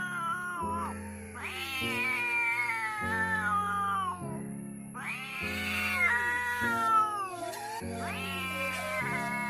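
Cats caterwauling in a fight: three long, drawn-out yowls, each jumping up in pitch and then sliding slowly down, over background music.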